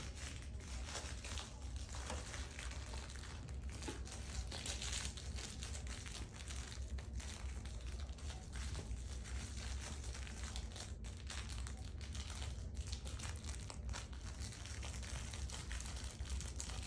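Miniature poodle puppies scuffling and playing with fabric toys on carpet: a continuous crinkly rustle with many small scrapes, over a steady low hum.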